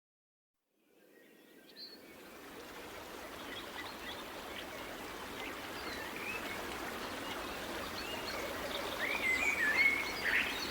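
A Huawei P20 Pro alarm tone made as a nature soundscape of running water and bird chirps. It fades in from silence about a second in and grows steadily louder, with the chirps coming more often near the end.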